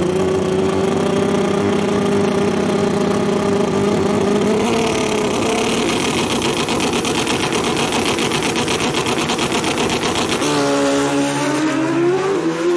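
Drag-racing motorcycle engines held at high revs on the start line, a steady high drone joined by a harsher, rapidly stuttering rasp about five seconds in. About ten seconds in they launch, the pitch climbing in steps as they shift up through the gears.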